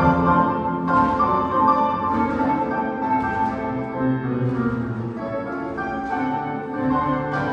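Recorded orchestral classical music playing, with a marked beat of about one new note or chord a second.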